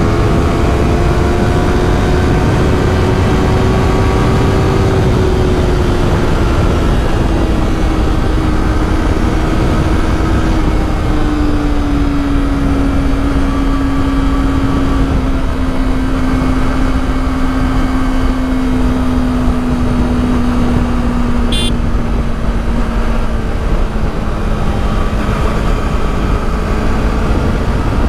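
Yamaha YZF-R3's parallel-twin engine running steadily, its pitch sinking slowly through the stretch, over a constant low rumble. A single sharp click about three-quarters of the way through.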